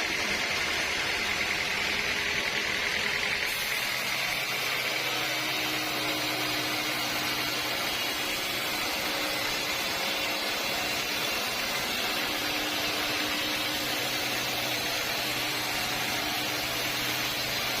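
Sawmill saw running steadily, a continuous machine noise whose tone shifts about three and a half seconds in.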